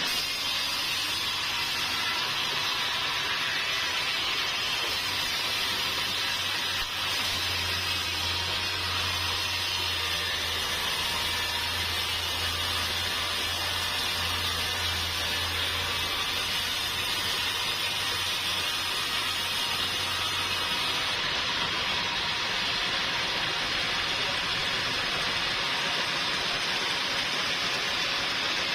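Sawmill machinery running: a steady, even hiss-like noise, with a low hum that comes in about a quarter of the way through and drops out a little past halfway.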